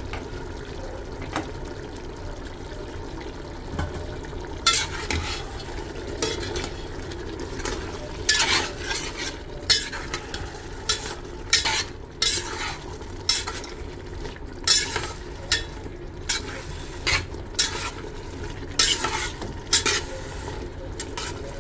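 Chicken, onions and fresh herbs frying in ghee in a pot, with a steady sizzle. From about five seconds in, a metal spoon stirs the mixture, scraping against the pot roughly once a second.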